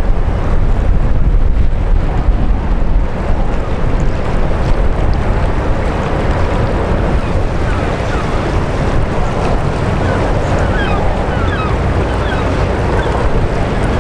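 Wind buffeting the microphone over the wash of water churned by a passing large container ship and its tug, a steady rushing noise. A few faint, short high chirps come through in the second half.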